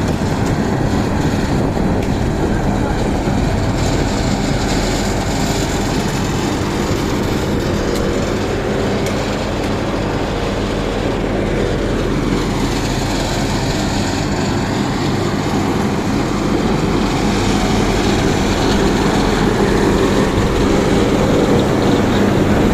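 Heavy diesel road-construction machinery running steadily, laying wet mix macadam. The engine hum holds steady and grows a little louder near the end.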